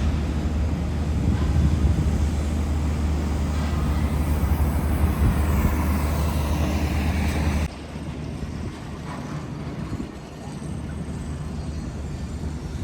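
Steady low rumble of a moving vehicle or road traffic, which cuts off abruptly about eight seconds in to a quieter, even noise.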